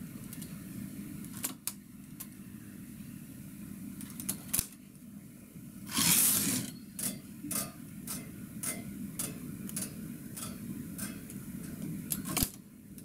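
Single-bed knitting machine: the carriage slides once across the needle bed about six seconds in, a short, loud rattling sweep. Around it come small metal clicks, about two a second afterwards, as a latch tool hooks knitted loops onto the machine's needles.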